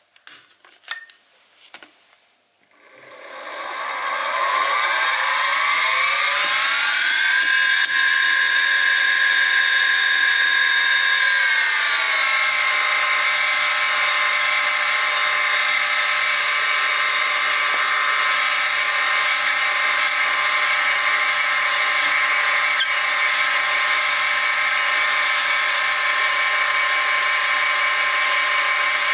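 Sieg SX2P mini mill's spindle motor starting up after a few clicks, its whine rising in pitch over about five seconds, then settling to a slightly lower steady pitch about twelve seconds in, running a small twist drill for a 2.6 mm hole.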